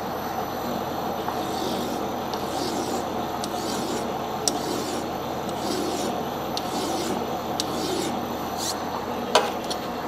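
Metal lathe running while a flat hand file is stroked against the spinning steel shift shaft of a Suzuki TS125, smoothing down the weld. Repeated rasping file strokes over the lathe's steady hum, with a sharp click about nine seconds in.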